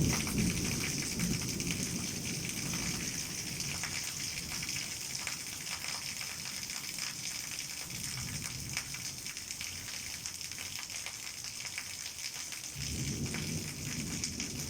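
Heavy rain falling steadily in a dense hiss of drops. Low rumbles of thunder swell at the start, again about halfway through, and near the end.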